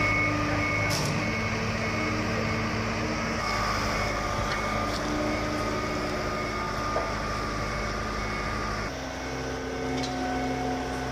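Boat travel lift running, its engine and machinery making a steady hum, with a repeating high warning beep. About nine seconds in the engine note shifts lower and steadies.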